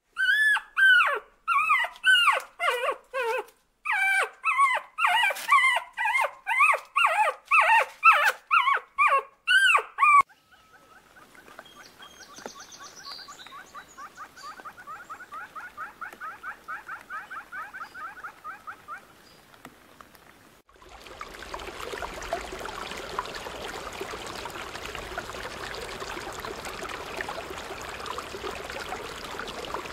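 Civets giving loud, short, high yelping calls, each rising and falling in pitch, two or three a second for about ten seconds. Then a fainter, fast, even chattering of birds, and from about two-thirds of the way in a steady rush of water.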